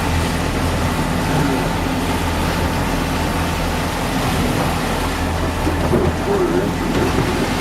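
Boat engine running steadily with a low hum, under a constant rush of wind and water noise.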